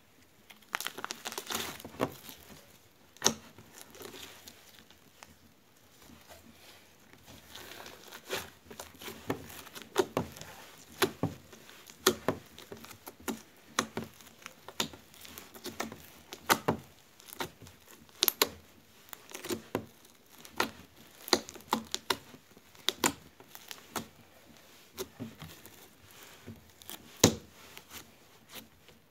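Yellow slime being stretched, dropped, folded and pressed by hand, giving a run of irregular sticky clicks and pops that starts about a second in, with a quieter stretch a few seconds later.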